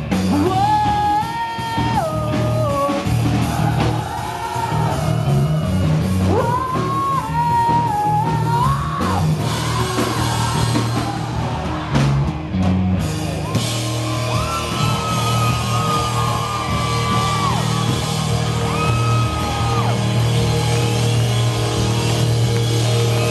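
Rock song with a lead singer over loud guitars and drums, with shouts mixed in.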